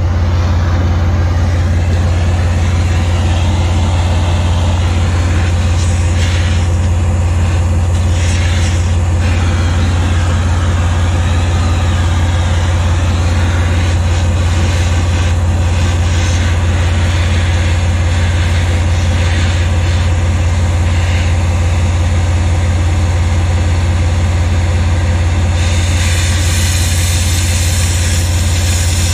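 An engine idling steadily with a deep, even hum. Near the end an oxy-acetylene cutting torch adds a rushing hiss as it starts cutting.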